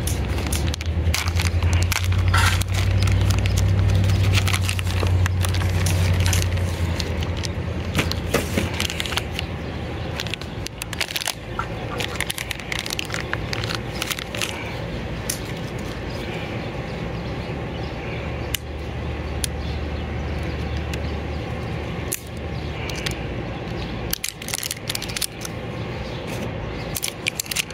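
Clear plastic parts bag crinkling and crackling as it is cut open with a knife and the AA batteries are taken out, with many small sharp crackles. A low steady hum runs underneath for the first several seconds and again for a few seconds past the middle.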